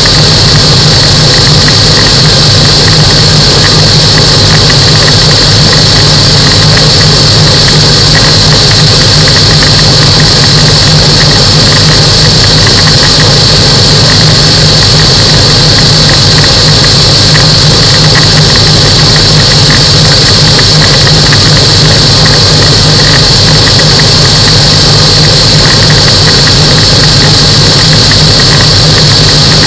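Microlight aircraft's engine and propeller running steadily at constant power, a loud low drone with a steady high-pitched whine over it and no change in pitch or level.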